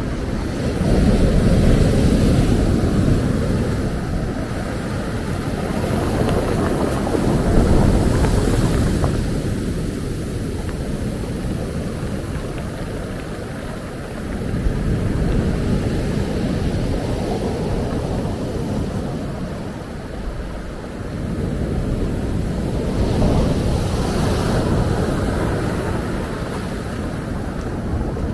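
Ocean waves breaking and washing up the beach, swelling about four times, roughly every seven seconds, over a low rumble of wind on the microphone.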